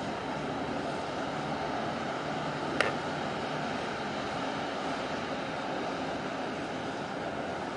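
Steady drone and water wash from a large container ship moving past close by, with one sharp click about three seconds in.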